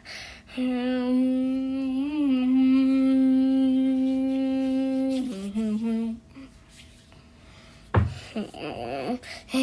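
A person humming one long, steady note for about five seconds, with a slight wobble partway through, then a couple of short lower hums. About eight seconds in there is a sharp thump, followed by a brief murmur of voice.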